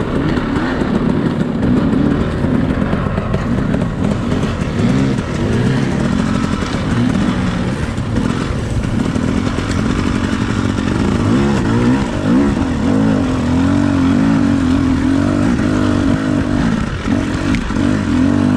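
Enduro dirt bike engine running under the rider, its revs rising and falling repeatedly with the throttle.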